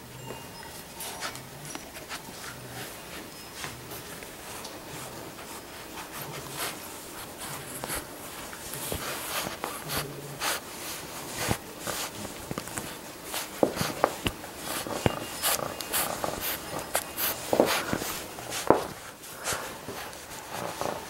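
Labrador retriever puppy chewing and mouthing a plush toy close to the microphone: irregular clicks and snorting snuffles, getting busier and louder about halfway through.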